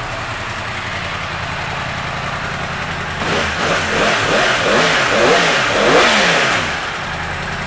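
2016 Yamaha YZF-R1M's 998 cc crossplane inline-four idling, then revved in a few quick blips from about three seconds in, pitch rising and falling each time, before it settles back to idle near the end.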